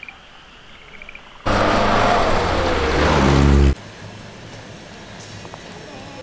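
Car engine running loudly for about two seconds, its pitch dipping and then rising as it revs, cutting off suddenly.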